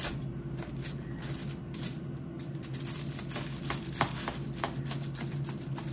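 Table knife and fork scraping and tapping against a foil-lined plate while sawing through cooked pork spare ribs: irregular light clicks and scrapes, over a steady low hum.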